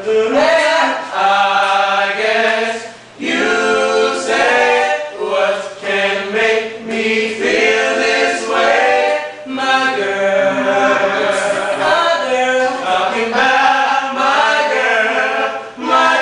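A small group of young male voices singing a cappella in harmony, in held notes and phrases.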